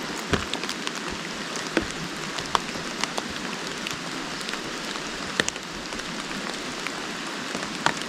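Steady rain falling, with single drops ticking close by at irregular moments.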